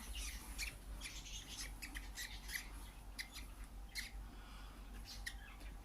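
Budgerigar chicks giving short, faint, high chirps, about three a second, in an uneven string.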